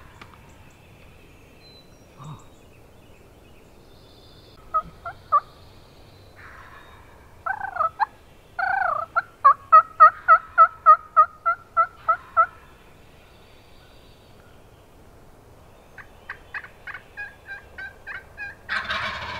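Turkey calling: a couple of short notes about five seconds in, then a loud run of evenly spaced notes, about four a second for some four seconds, and a fainter, quicker run near the end.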